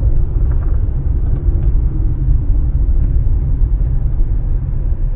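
Steady low rumble of a car being driven, engine and road noise.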